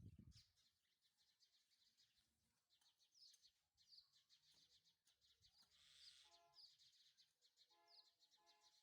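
Near silence with faint birds chirping in quick repeated series, and a few short pitched calls in the last three seconds.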